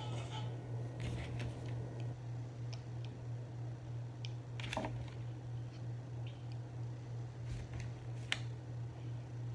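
Steady low hum with a few light clicks and taps scattered through it, the sharpest about eight seconds in.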